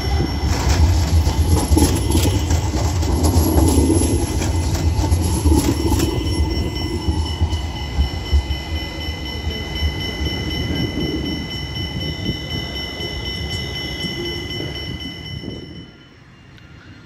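A tram running past: a loud low rumble, with wheels clacking over rail joints in the first few seconds and steady high-pitched whines above. It slowly fades and drops away near the end.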